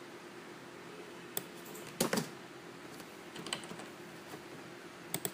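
A handful of faint, scattered computer clicks, spaced irregularly about a second apart, over low room hiss.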